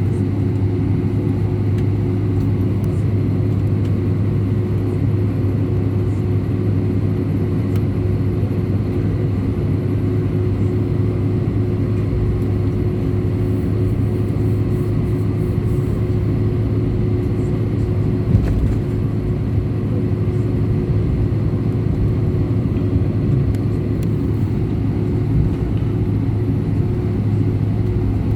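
Steady drone of an Airbus A319 airliner heard from inside the passenger cabin: engine and airflow noise with a low, even hum.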